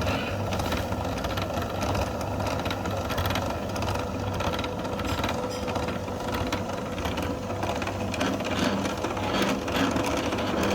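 A small machine running steadily, with a fast, even clatter over a low hum and a steady whine.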